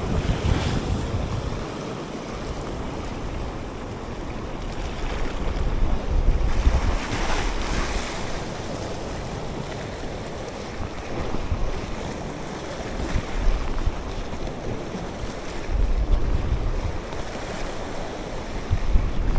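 Sea surf breaking and washing over rocks, with gusts of wind buffeting the microphone; the noise swells in several surges.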